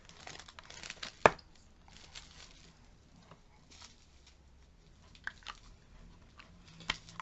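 Faint rustling of plastic bubble-wrap packaging being handled and unwrapped, with one sharp click about a second in and a few light ticks near the end.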